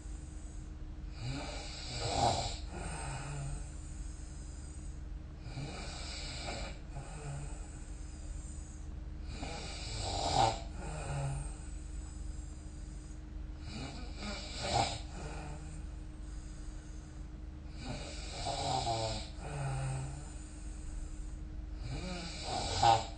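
A sleeping person snoring, with a snore on each breath roughly every four seconds, over a steady low hum.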